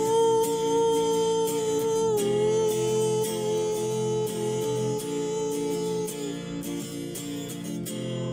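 Music: a strummed acoustic guitar under a long held melody note, which dips slightly in pitch about two seconds in and fades out about six seconds in.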